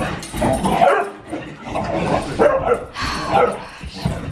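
Beagle-mix dog barking and yipping in play, in repeated short outbursts, with thumping footfalls on a carpeted floor.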